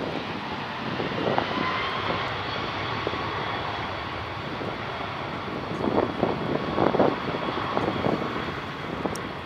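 Boeing 777 twin-jet airliner's turbofan engines running as it rolls along the runway for departure: a steady jet noise with a faint high whine, swelling unevenly about six to seven seconds in.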